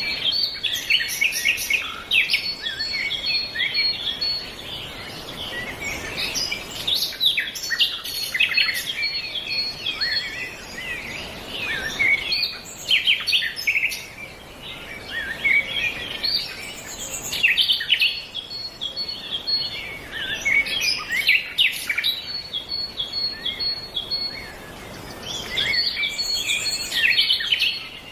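Several songbirds chirping and singing in overlapping bouts, with a fast high dotted trill that starts and stops several times.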